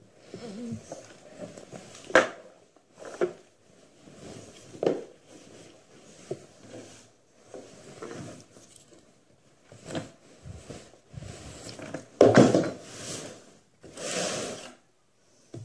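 A horse's stable rug being handled and moved about: fabric rustling in irregular bursts, with a sharp knock about two seconds in and the loudest rustling about twelve seconds in.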